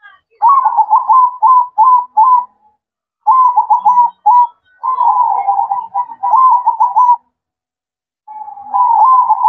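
Zebra dove (perkutut) cooing its song: quick runs of short, staccato coos in four phrases with brief pauses between them.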